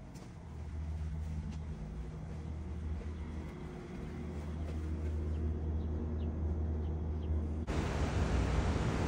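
A steady low hum with a few faint ticks, then about three-quarters of the way through it cuts abruptly to a louder, even rushing noise: wind on the microphone outdoors.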